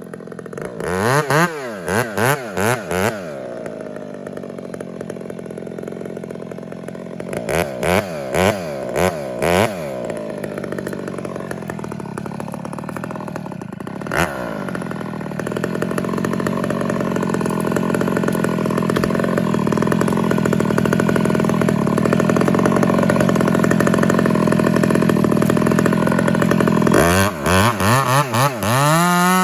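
Chainsaw revved in quick blips, a few at a time, then held down steadily under load through a long cut into the tree, with more quick revs near the end.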